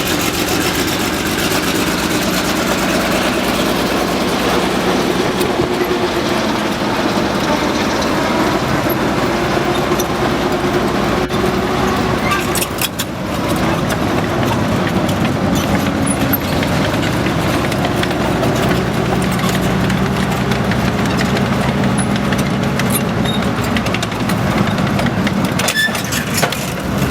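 Maybach HL 120 V12 petrol engine of a Panzerkampfwagen IV Ausf. G tank, running continuously with its note rising and falling several times. A few brief knocks come about halfway and near the end.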